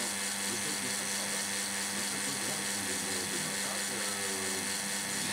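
Reverse-osmosis unit's booster pump running with a steady hum while the system is held in its flush cycle, which is running longer than the usual minute.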